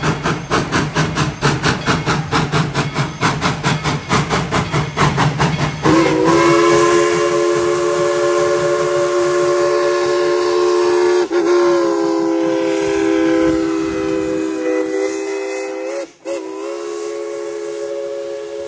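Steam locomotive working with a rhythmic exhaust chuff, about three to four beats a second. About six seconds in, its whistle sounds a long blast of several notes together, with two brief breaks, while the chuffing fades out.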